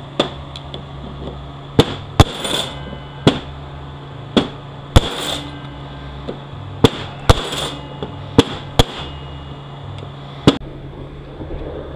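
Hammer striking a bushing driver to drive a bushing in a 6L80E automatic transmission: about ten sharp metallic blows at an uneven pace, with a few short hisses between some of them.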